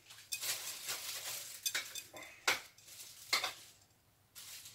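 Metal spoon scooping a hollow into a ball of mashed potato: soft scraping, then a few short clicks and clinks of the spoon about a second apart.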